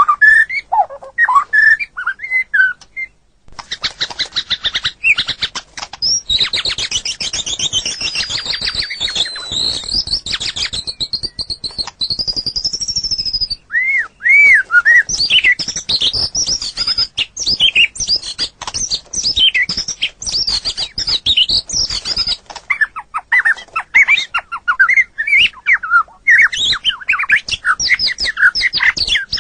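White-rumped shama (murai batu) singing a long, varied song. A stretch of rapid rattling chatter with a high gliding whistle over it gives way, about halfway through, to loud whistled phrases and quick trills.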